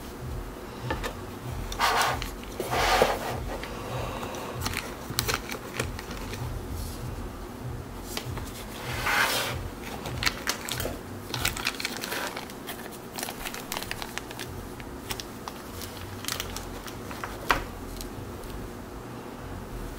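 Gloved hands handling a watch presentation box and its contents: cloth-covered fingers rustling and brushing against the box lining, with small clicks and taps. Louder rustles come about two and three seconds in and again around nine seconds.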